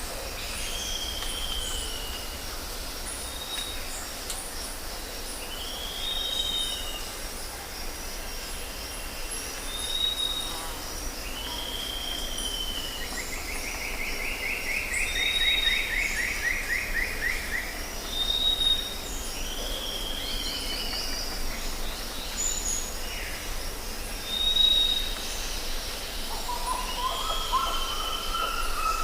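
Jungle ambience: several birds calling over a steady high insect drone. An arched whistled call repeats every few seconds between short high pips, a long rapid trill sounds in the middle, and a series of lower notes comes in near the end.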